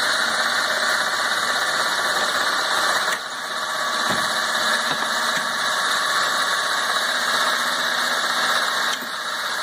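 Cordless drill running steadily as it drives the A-26 Invader's flap mechanism, raising the flap. The sound drops briefly about three seconds in and again near the end.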